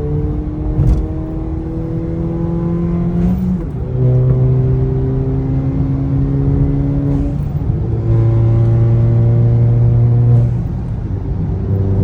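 Turbocharged 1.4-litre four-cylinder engine of a Volkswagen Jetta with a Unitronic Stage 2 tune, accelerating through the gears. The engine note climbs steadily, then drops at each of three upshifts, with a short click at each shift.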